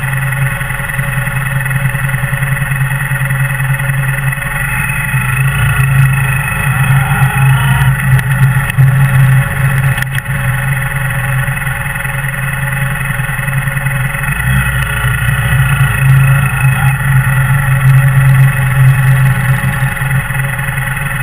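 Kawasaki W800's air-cooled parallel-twin engine running at low revs while creeping along in slow motorcycle traffic, the engine note swelling slightly a couple of times.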